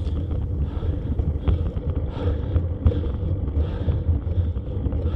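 Wind buffeting the microphone of a camera mounted on a bicycle climbing a steep hill, a heavy, unsteady low rumble over a steady hiss, with a few faint ticks.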